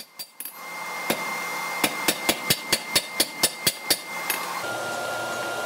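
Hand hammer striking a red-hot steel bar on an anvil: a single blow about a second in, then a quick, even run of about ten blows, setting down the shoulder of a tong jaw at 45 degrees to form the bolster. A steady rushing noise runs underneath.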